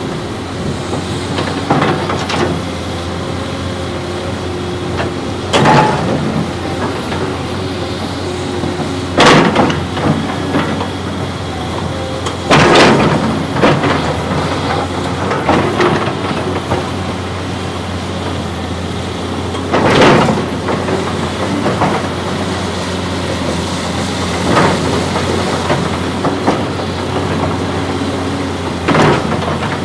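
Cat hydraulic excavator's diesel engine running steadily while its bucket digs into and handles a pile of broken concrete slabs, with about eight loud clattering crashes of concrete chunks spread every few seconds.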